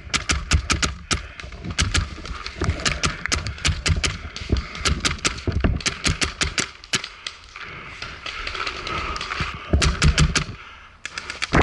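Paintball markers firing in rapid strings of sharp pops, several shots a second, in bursts with short pauses between them.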